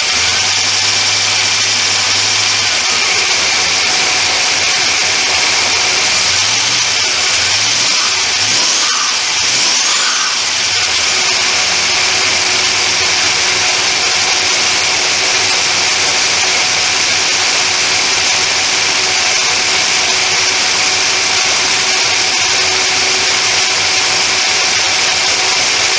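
Studebaker Hawk's supercharged V8 running on its first cold start after repair work. It idles steadily, with a few brief throttle blips about seven to ten seconds in.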